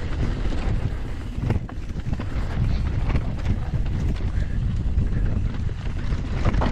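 Wind buffeting an action camera's microphone while a YT Decoy e-mountain bike descends a dirt trail at speed, with tyre rumble and a few sharp knocks and rattles from the bike over bumps.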